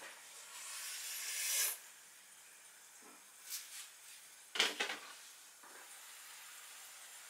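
A hiss swells for about a second and a half and cuts off. Then come a few light clinks of a glass saucepan lid as it is lifted off the simmering pot.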